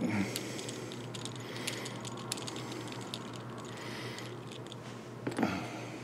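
Faint small metallic clicks and ticks of a metal wing nut being turned by hand off the threaded bolt of a camera-mount arm, over a low steady hum.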